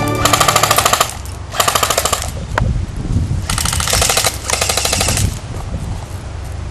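Airsoft guns firing on full auto in four short rattling bursts, the last two close together, with a single sharp crack between the second and third bursts.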